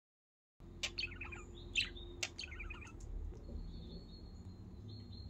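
Pet budgerigars chirping: a few quick clusters of short chirps in the first half, then fainter, sparser chirps.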